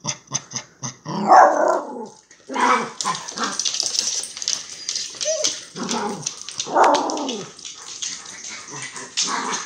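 Pomeranian grumbling and barking in short bursts, four louder ones with rapid small yips and ticking between: a hungry dog grouching for food.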